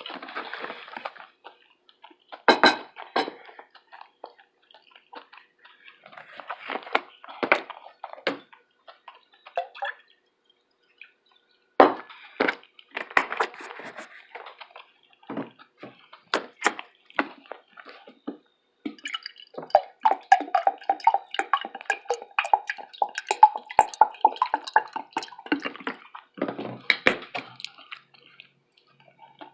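Close-miked eating sounds: wet chewing, lip smacks and mouth clicks in bursts, with a short pause about ten seconds in. In the second half a steady mid-pitched tone runs for about six seconds under thick clicking.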